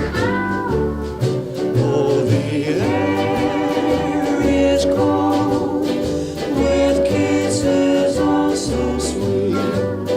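Background music: a song with held vocal harmonies over a steady bass beat.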